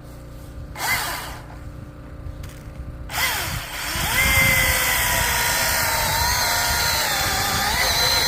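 Milwaukee M18 cordless chainsaw: a short trigger blip about a second in, then, from about three seconds in, the motor runs up and keeps running with a steady electric whine whose pitch dips and recovers now and then.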